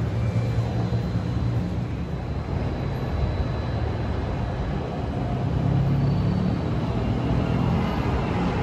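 Steady low rumble of distant city traffic heard from high above the streets, with no distinct events standing out.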